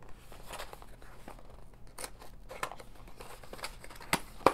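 Small folding cardboard box being opened by hand: paperboard flaps sliding and scuffing against each other, with a few sharp clicks, the loudest near the end.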